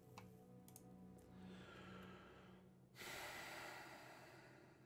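Near silence broken by a person's breathing close to the microphone. A soft breath comes about one and a half seconds in, then a stronger nasal exhale about three seconds in. A couple of faint mouse clicks are heard near the start.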